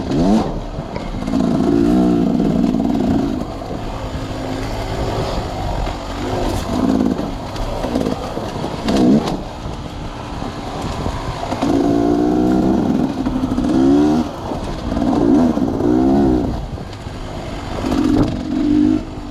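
Dirt bike engine revving hard, its pitch climbing and dropping again and again as the rider opens and closes the throttle and shifts.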